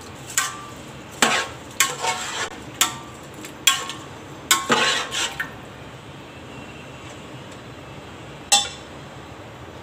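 Metal spoon clinking and scraping against the side of a metal cooking pot while soaked rice is stirred into chicken stock: a run of sharp clinks with a short ring in the first five seconds, then one more clink near the end.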